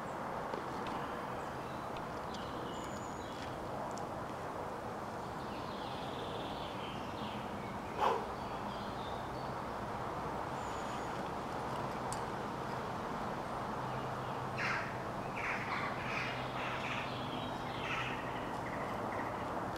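Woodland ambience: a steady background hiss with birds calling, a single short sharp sound about eight seconds in, and a run of short bird calls from about fourteen to eighteen seconds in.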